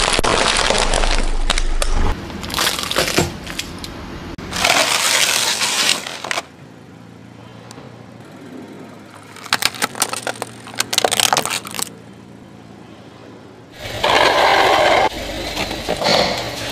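Car tyres rolling over and crushing plastic toys and snack packaging: several separate bursts of crackling, crunching and snapping plastic, with quieter gaps between them.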